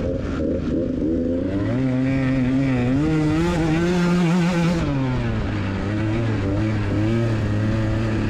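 A KTM 125 EXC two-stroke enduro engine running under the rider, heard from a camera on the bike. Its pitch climbs about a second and a half in, holds high for a few seconds, then drops and rises and falls with the throttle.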